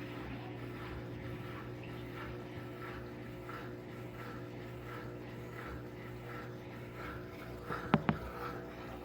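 Electrolux LTD06 washing machine running: a steady motor hum with a soft swish repeating about every two-thirds of a second. Two sharp clicks about eight seconds in.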